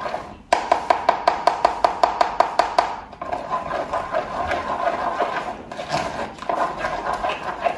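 A spoon scraping round the mesh of a plastic colander, pushing blended chile sauce through into the pot below. Quick, even strokes, about six a second, for the first few seconds, then slower, irregular scraping.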